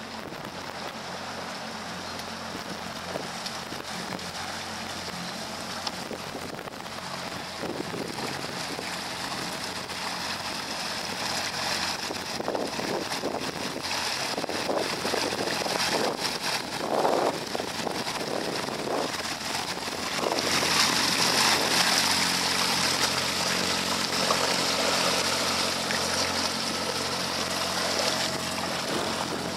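80 hp Suzuki four-stroke outboard running steadily under way, with water rushing past the hull and wind on the microphone. It grows louder and hissier about two-thirds of the way through.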